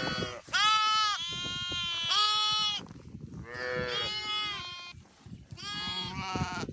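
Dorset sheep bleating in a pen, several calls one after another and overlapping, with short lulls about halfway through and again near the end.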